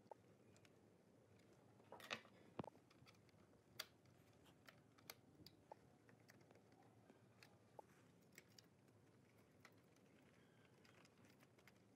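Faint, scattered clicks and taps of a screwdriver and hands working on the plastic housing and wiring of an old CD stereo, over quiet room tone; the loudest pair of taps comes about two seconds in.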